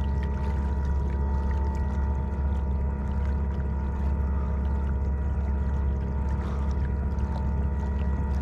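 Bixpy J-2 electric kayak motor running at a steady speed: a constant low hum with a thin, even whine above it, with water washing along the hull.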